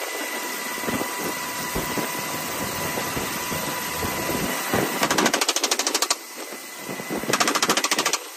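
Helicopter door-mounted machine gun firing two rapid bursts of about a second each, about five seconds in and again near the end. Underneath is the steady whine and rumble of the helicopter in flight.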